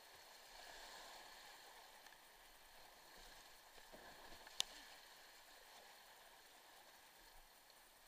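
Faint steady rush of whitewater rapids around a kayak as it is paddled downstream, with one sharp click about halfway through.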